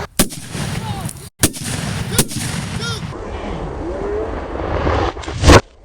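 Kalashnikov Komrad 12-gauge shotgun firing four shots. The first three come about a second apart, and the last follows after a pause of about three seconds.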